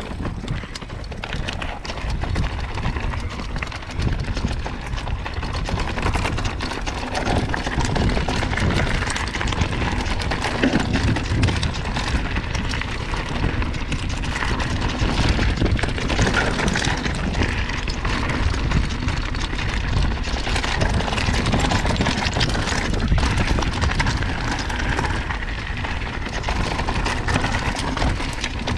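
A mountain bike ridden fast down a rough trail: wind buffeting the microphone, tyres running over the dirt and rock, and the bike rattling and knocking over bumps. It gets louder over the first few seconds as speed picks up.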